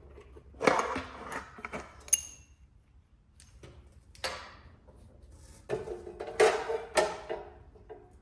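Metal parts of an abrasive chop saw knocking and clinking as the cutoff wheel and its hardware are handled and fitted, in a string of separate knocks, one about two seconds in leaving a short metallic ring.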